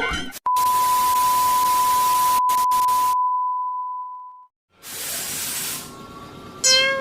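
Sound effects: a loud burst of hiss with a steady high beep, the hiss cutting off suddenly and the beep fading away. A second, shorter hiss follows, then a brief sharp pitched tone near the end.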